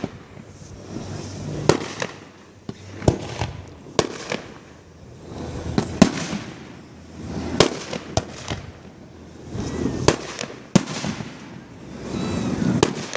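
Aerial fireworks shells bursting over a lake, about ten sharp bangs at irregular gaps of one to two seconds, with a rumbling wash of sound between them.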